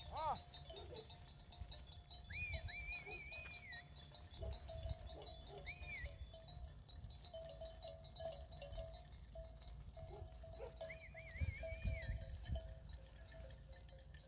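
A flock of sheep passing, with a falling bleat just after the start and bell tones ringing on and off throughout.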